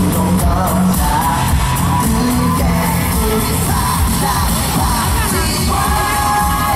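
Loud live pop song with singing over a dance backing track, heard through a stadium sound system.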